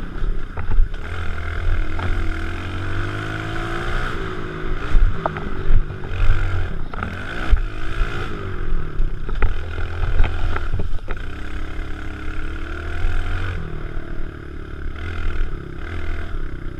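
Kawasaki KLX110 pit bike's small four-stroke single-cylinder engine being ridden hard, its pitch rising and falling over and over as the throttle is opened and closed. Sharp knocks and rattles come through every second or two as the bike goes over the rough dirt trail.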